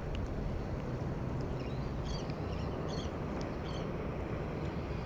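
Steady wind rumble on the microphone, with a few faint, short, high chirps about two to three seconds in.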